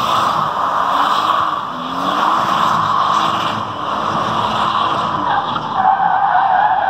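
Tyres screeching as a 2JZ-GTE VVT-i–swapped BMW E36 drifts, with the straight-six's revs wavering underneath. About five seconds in the squeal settles into a steadier, lower tone.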